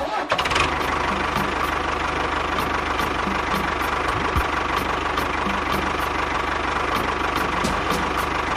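A small engine or motor running steadily with a fast, even chug.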